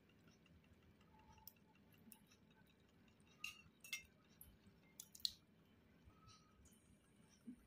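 Faint crackling from a lump of Ural clay soaking in water in a stainless steel bowl: scattered soft clicks and pops as the dry clay takes up water, a few sharper ones in the middle.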